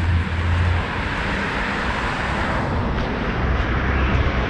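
Steady rushing traffic noise from a nearby road, swelling a little toward the middle and easing off.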